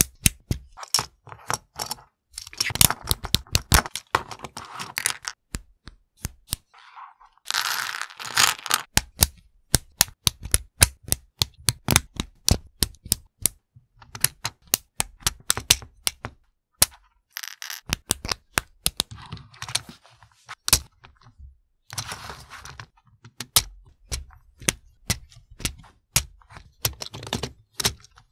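LEGO Technic pins snapping into plastic liftarms, with a steady run of sharp plastic clicks and clacks, several a second, as the parts are pressed together. A few short stretches of rustling come between the clicks.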